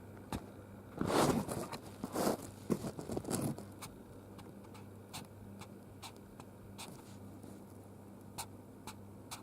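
Hamster rustling and scratching in birch-chip bedding: a flurry of scraping for a couple of seconds about a second in, then a few small sharp clicks spaced out over the rest.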